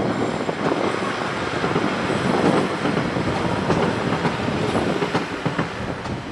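Class 50 diesel locomotive's English Electric 16CSVT V16 engine running just after a cold start in freezing weather, a loud, steady rumble as it pours out heavy exhaust clag.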